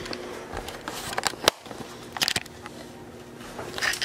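Handling noise as a hand-held camera is picked up and carried: scattered clicks and knocks, one sharp click about one and a half seconds in, and short rustling scrapes near the middle and end.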